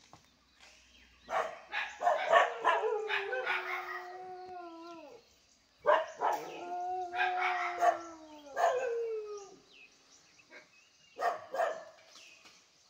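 A pet dog barking hard at a wild elephant to drive it off. Bursts of rapid barks twice run into long howling bays that sag in pitch as they end. A few more barks come near the end.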